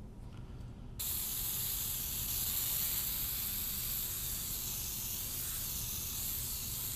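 Aerosol brake parts cleaner spraying onto a new brake rotor in one long steady hiss that starts abruptly about a second in, washing off the rotor's anti-rust shipping oil.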